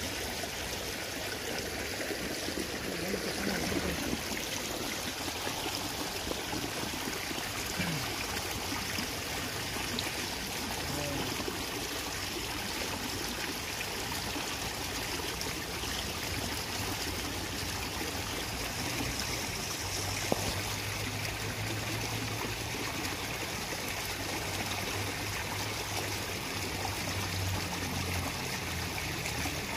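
Small stream running with a steady trickling rush of water. A faint low hum joins in about two-thirds of the way through, with a single click near its start.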